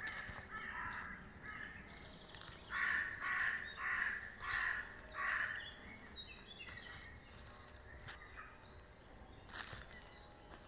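A bird giving a series of short, harsh calls: about three near the start, then a louder run of five in quick succession a few seconds in.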